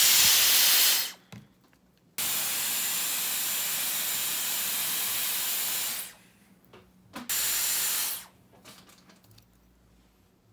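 Dyson Airwrap hair styler blowing air with a faint high whine, in three bursts that start and stop abruptly: a loud one at the start, a steady one of about four seconds, and a short one near the end.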